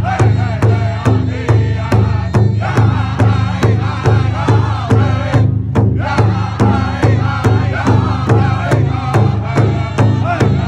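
Powwow drum group: several drummers striking a large shared powwow drum with padded sticks in a steady beat of about three strokes a second, while the men sing a powwow song in high voices. The singing breaks off briefly about halfway through while the drumbeat carries on.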